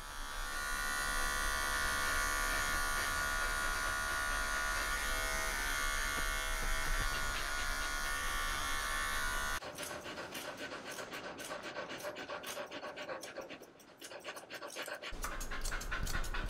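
Cordless pet clippers buzzing steadily as they shave out the fur between a dog's paw pads, cutting off abruptly about ten seconds in. After that comes a run of quick, even snips from grooming shears trimming the fur of the foot, with a short pause near the end.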